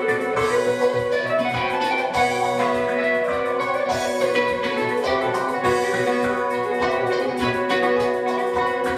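Band music: a lead melody line moves over a steady low note and sustained chords, with an even drum beat.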